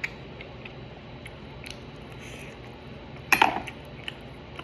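Quiet sounds of a person eating: a few soft clicks, with one short louder sound about three seconds in.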